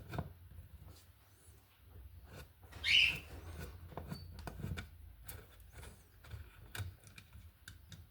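Light clicks, knocks and scrapes of hands and tools working on an electrical outlet, with one brief squeak about three seconds in, over a steady low hum.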